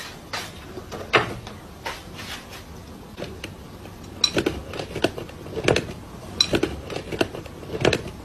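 A series of irregular knocks and light clinks over a faint background hiss, with several quick ones coming together about four seconds in and again near the end.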